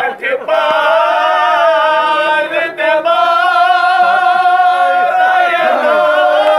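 A man's voice chanting a Shia mourning lament (noha) in long, drawn-out held notes.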